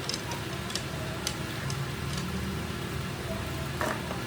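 Steady low hum of a running workshop machine motor, with scattered light clicks and taps over it.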